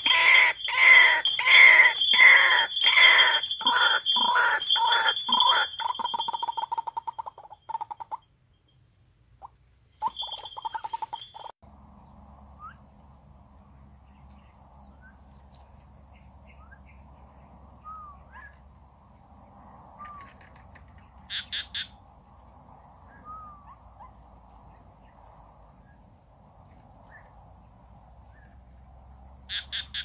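White-breasted waterhen calling a fast run of harsh, repeated croaks, about two a second, that fades out after roughly seven seconds. A short burst follows a few seconds later. Then faint bird chirps and short insect-like clicking over quiet background noise.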